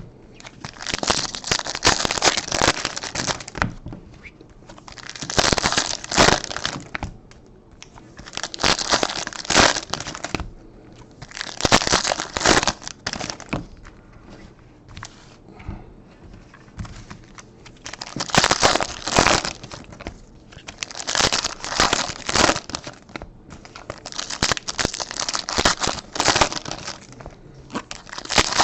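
Foil trading-card pack wrappers being torn open and crinkled by hand, in repeated bursts of a second or two, about eight of them.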